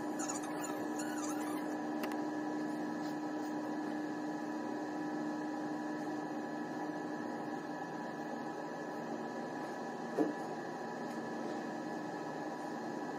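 Steady machinery hum of a large car ferry under way, holding a few fixed tones over an even drone. A brief, slightly louder sound stands out about ten seconds in.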